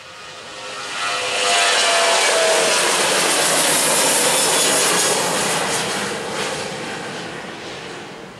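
Jet noise from a Boeing 737-900ER's turbofan engines at take-off power as the airliner climbs out past the listener. It swells quickly over the first second or so, holds loud for a few seconds with a faint falling tone early on, then fades as the jet climbs away.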